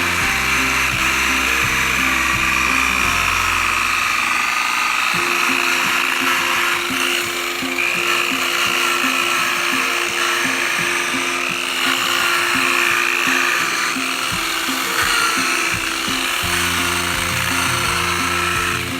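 Background music with a steady beat over a whining rotary power tool, its pitch wavering as it works on the headlamp lens.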